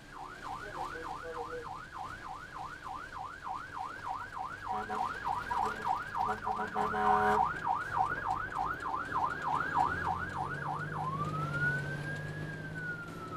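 Ambulance siren in yelp mode, a fast up-and-down sweep repeating about three times a second, with a brief louder burst about seven seconds in. Near the end it switches to a slow wail that rises and then falls.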